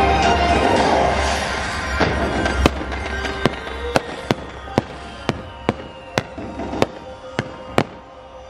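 Fireworks bursting overhead: about a dozen sharp bangs, roughly two a second, starting about two seconds in, over the show's orchestral music, which is loud at first and then fades.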